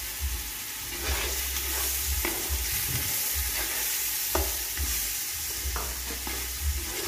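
An onion, tomato and spice mixture frying in hot oil in a pan, with a steady sizzle, while a spoon stirs it and knocks and scrapes against the pan at irregular moments. An uneven low rumble runs underneath.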